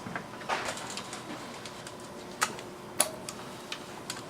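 Hand tools clicking and clinking against metal engine parts: a handful of sharp, separate metallic taps, some with a brief ring, and a short rasp about half a second in.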